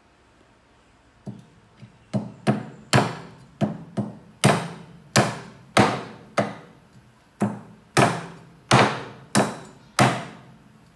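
Meat cleaver chopping raw chicken on a round wooden chopping block: a couple of light taps, then about fourteen sharp chops, a little under two a second, in an uneven rhythm that stops about ten seconds in.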